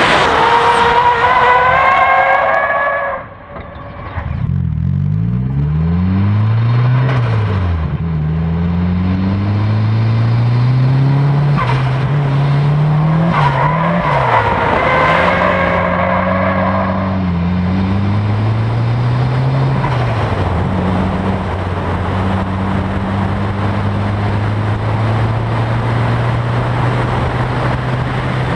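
Nissan S13 Silvia's turbocharged SR20DET four-cylinder revving up and down while drifting, with the tyres squealing through the slides for the first three seconds and again about fifteen seconds in. The sound dips briefly about three seconds in. The engine settles to a steadier note in the last part.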